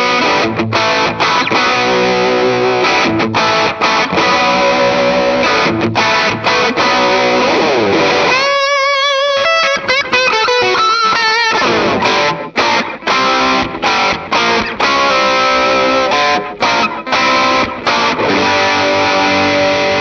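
Electric guitar played through a Valeton GP200R multi-effects processor on a crunch overdrive preset, light distortion suited to rock and pop. Chopped rock chords with short stops, and about halfway through a brief single-note lead phrase with wavering vibrato.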